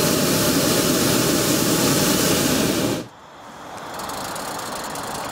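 Hot-air balloon's propane burner firing, heating the air in the envelope: a loud, steady roar that cuts off suddenly about three seconds in, leaving a fainter steady background noise.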